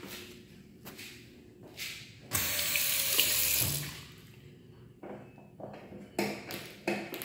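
Sink faucet running into the basin for about a second and a half, starting about two seconds in and then shutting off. Near the end come a few short plastic clacks from a wall-mounted Ecolab soap dispenser being pushed.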